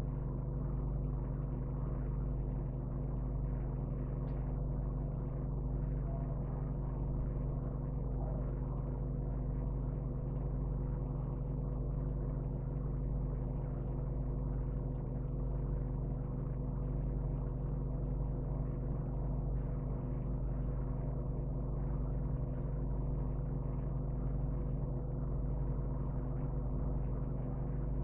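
Steady low background hum made of several fixed tones, unchanging in pitch and loudness.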